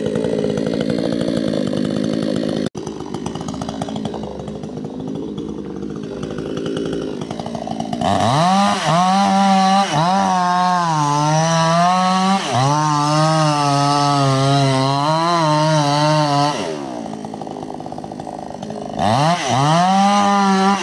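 Two-stroke chainsaw cutting into a palm trunk. It runs at low revs at first, then about eight seconds in it is revved to full throttle and its pitch sags as the chain bites into the wood. It drops back around sixteen seconds and revs up again near the end.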